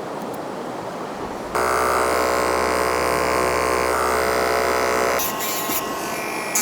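Electric dog grooming clippers buzzing steadily. The buzz starts suddenly about a second and a half in, then drops to a quieter, thinner buzz about five seconds in. Wind noise fills the first moment.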